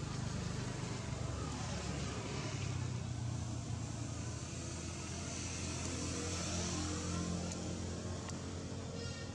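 A motor vehicle engine running with a steady low hum.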